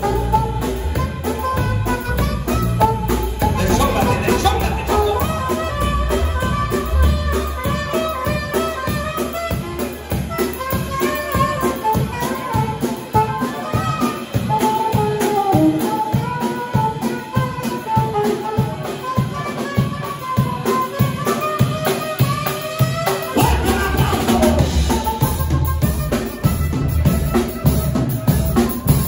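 Live band playing: a saxophone carries a wandering melody over a steadily played drum kit. The heavy bass drops away for a stretch in the middle and comes back strongly about 23 seconds in.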